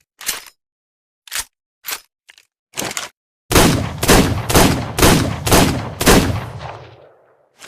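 Revolver sound effect: a few sharp mechanical clicks of the gun's action, then six loud shots fired about two a second, the last one ringing out.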